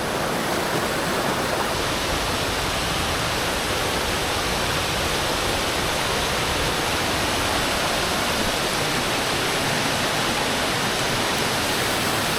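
River water rushing steadily through a stretch of white water.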